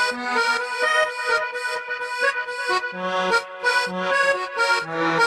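Music led by an accordion playing a quick melody of short, changing notes over a lower bass line.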